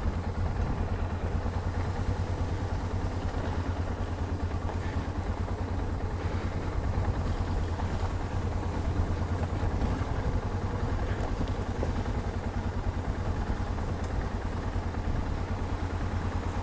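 Yamaha XT 660Z Ténéré's single-cylinder engine running steadily, a low, even pulsing with no revving.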